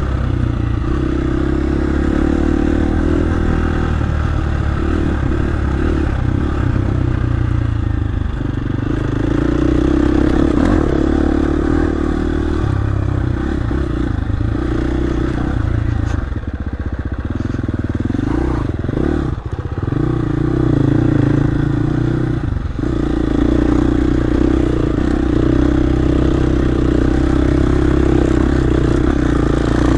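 Dirt bike engine running under changing throttle as the bike is ridden, pitch rising and falling, with the throttle briefly closed twice a little after the middle.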